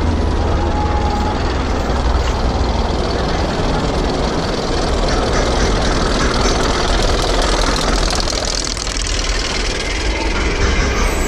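Intamin inverted roller coaster train being hauled up the lift hill by its chain: a steady mechanical rumble from the lift chain and train.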